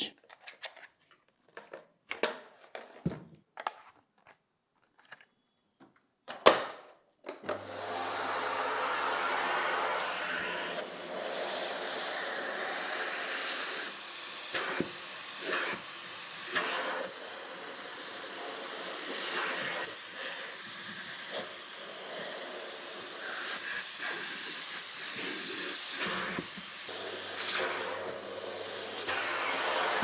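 A few clicks, then an Agaro Twister 2200 W canister vacuum cleaner switches on about seven seconds in and runs steadily, its suction noise swelling a little as the nozzle is worked over sofa upholstery.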